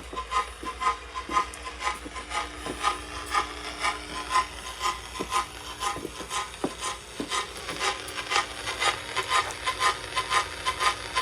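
An odd signal from a radio receiver: a steady rhythm of short beeps, about three a second, amid a dense clatter of clicks, over a constant low hum. It sounds like a teletype starting up.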